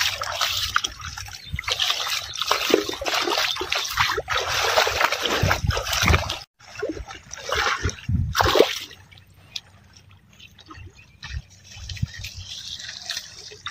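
Splashing and sloshing in shallow muddy floodwater as a pair of yoked bullocks wade into a flooded paddy field to be washed. It breaks off for a moment about six seconds in. After about nine seconds it thins to lighter trickling and splashing.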